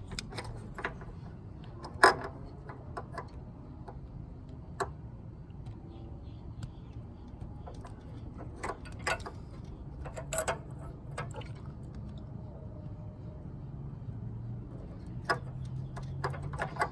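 Scattered sharp plastic clicks and taps from hands fitting an LED headlight bulb and its wiring connectors, with one louder click about two seconds in.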